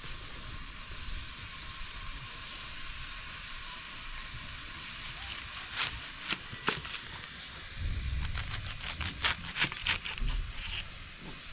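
Kitchen knife cutting through a raw cabbage head onto a cutting board: short crisp crunches, two around the middle and a quick run of several near the end, over a steady hiss.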